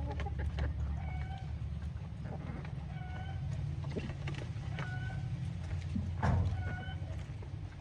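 Chickens clucking in short, repeated calls, roughly one a second, over a steady low rumble. A louder thump comes late on.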